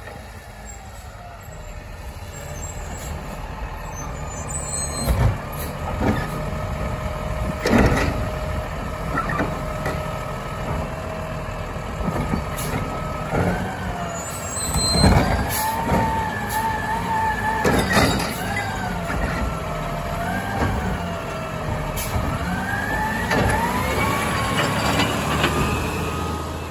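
Automated side-loader garbage truck (a Labrie Automizer) running on its diesel, with sharp air-brake hisses and knocks as it stops at the carts. From about ten seconds in, a whine rises and falls in pitch again and again as the engine revs to drive the hydraulic lifting arm.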